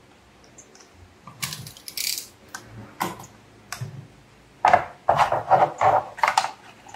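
A plastic phone gimbal being handled and turned as its folding arm is swung out: a rustle about a second and a half in, then a quick run of clicks and knocks near the end.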